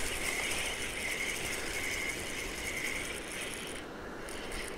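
Spinning reel being cranked while a hooked carp pulls on the line: a mechanical gear noise that swells in a steady rhythm about twice a second, then stops a little over three seconds in.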